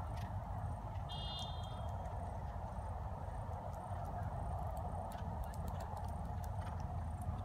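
Steady open-air background noise with a low rumble, and a brief high chirp about a second in.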